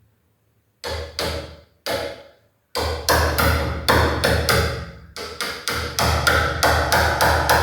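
Hammer tapping on a cutting tool to sink the lock recess in a plywood door deeper: a brief silence, a few separate taps, then steady taps about three a second.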